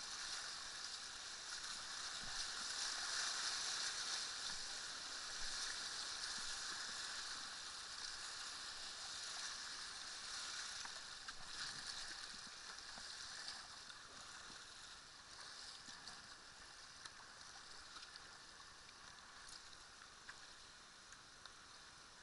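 River whitewater rushing and splashing around a kayak running a rapid. It is loudest in the first few seconds, then fades steadily as the boat moves out into calmer water.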